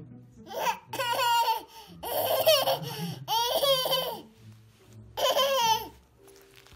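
A one-year-old girl laughing hard in four high-pitched bursts, each about a second long; the laughter stops about a second before the end.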